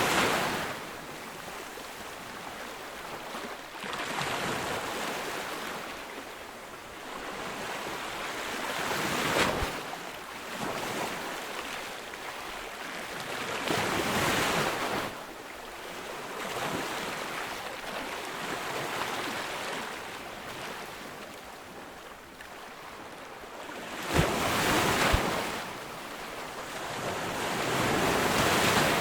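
Ocean surf: waves breaking on a beach one after another, the wash swelling and ebbing every four to five seconds. The biggest wave crashes about 24 seconds in.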